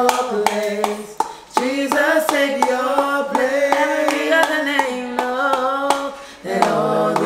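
A small group of men's and women's voices singing a worship song a cappella in long held notes, with scattered hand claps. There is a brief break about six and a half seconds in before the next phrase starts.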